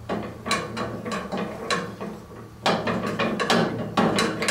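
Sawmill head's hand-crank lift winch being turned, its ratchet pawl clicking about three times a second, with a short pause just before the middle.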